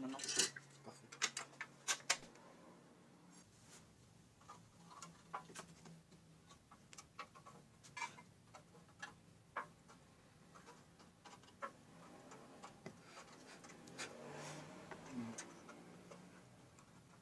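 Faint, irregular small clicks and taps of pliers and a soldering iron against the thin beer-can metal of the boat frame as its joints are soldered, over a faint low hum.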